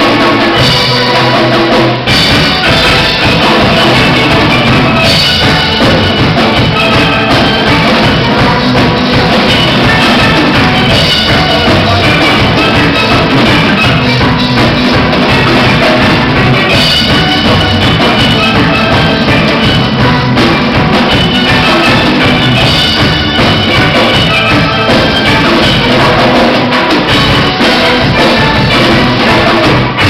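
Steel band playing a reggae tune live and loud, the ringing notes of the steelpans carried over a drum kit keeping a steady beat.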